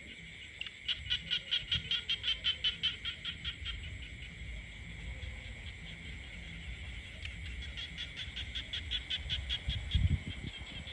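Frogs calling in a chorus of rapid pulsed croaks, about five a second, that fade midway and build again, over a steady high drone. A low thump comes about ten seconds in.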